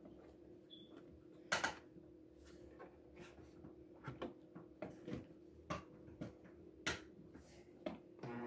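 Sewing machine stopped mid-seam: scattered light clicks and taps as the denim is shifted and handled under the presser foot and needle, with a faint steady hum. Two sharper clicks stand out, about a second and a half in and near the end.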